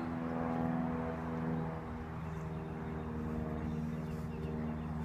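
Steady low machine hum holding one pitch throughout.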